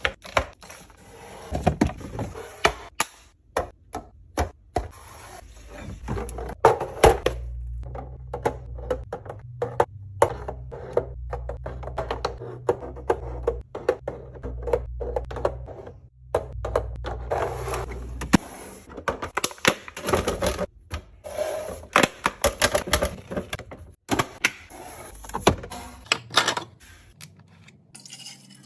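Rapid clicks, clacks and knocks of plastic containers, lids and packages being handled and set down while a fridge is restocked and organized. A low hum runs under the tapping from about a third of the way in until past the middle.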